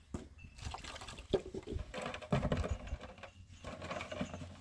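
Irregular light knocks, clicks and scuffs from handling plastic water jugs and a pitcher at a basin, with footsteps on dirt.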